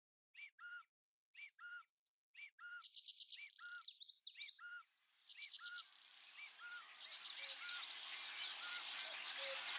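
Birds singing: a few repeated short chirps at first, then trills and whistles from several birds join in, building into a dense dawn-chorus-like din that grows steadily louder.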